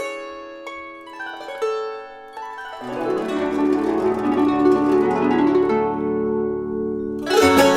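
Gusli music: plucked strings ringing out and dying away, filling out with lower notes about three seconds in, then louder, busier plucking near the end.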